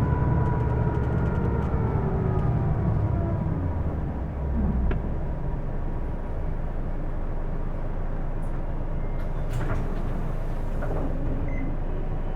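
Hino Blue Ribbon II city bus slowing to a stop, its drivetrain whine falling in pitch with road speed over the first few seconds, on a bus whose running noise the uploader calls abnormal. It then settles into a steadier, quieter engine rumble, with a short hiss of air about ten seconds in.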